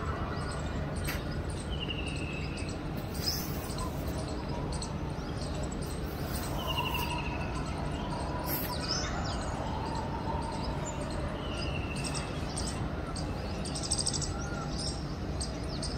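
Indian peafowl (peacock) calling from cover in a bush: three short, slightly falling calls about five seconds apart, over a steady low background hum.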